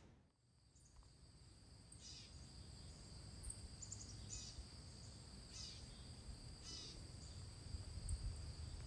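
Faint woodland ambience that fades up after a second of near silence: short bird chirps come every second or so over a steady high-pitched hum and a low rumble.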